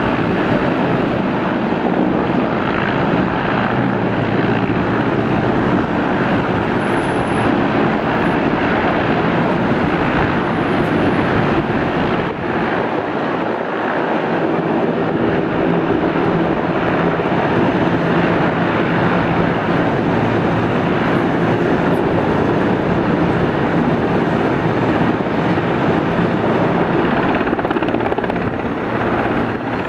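Mi-8/Mi-17 twin-turbine military helicopters flying: a loud, steady rotor and turbine noise, with a brief dip in level about twelve seconds in.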